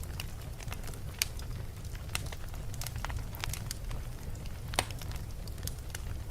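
Fire burning in a fireplace: a steady low rumble with irregular sharp crackles and pops, two louder snaps about a second in and near five seconds in.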